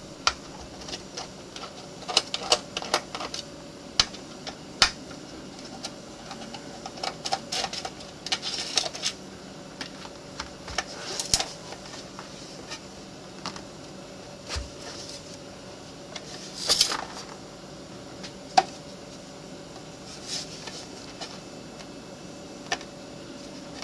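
Irregular clicks, taps and scrapes as an external hard drive enclosure is taken apart with a screwdriver: screws being turned out and the metal casing pieces handled and slid apart, over a faint steady hum.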